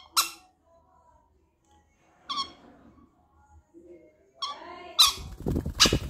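Two conures, one a green-cheeked conure, giving short squawks a couple of seconds apart. Near the end several squawks come in quick succession over a rustling scuffle of wings as one bird lunges at the other.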